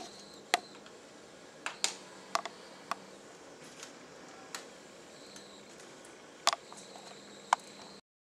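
About ten scattered light clicks and taps, irregularly spaced, over a faint steady hum: close handling noise. The sound cuts off suddenly near the end.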